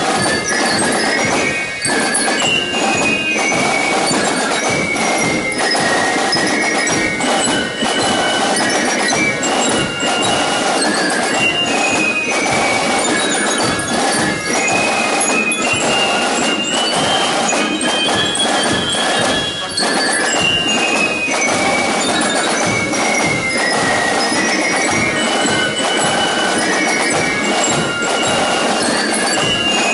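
Drum and fife corps playing a march: transverse flutes carry a stepping melody high above a steady, rapid beat of snare drums.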